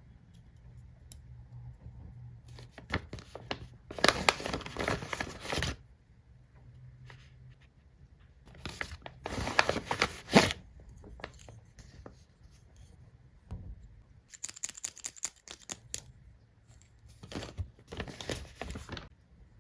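Packaging being torn open and crinkled by hand during an unboxing, in four bursts of a second or two each with short pauses between.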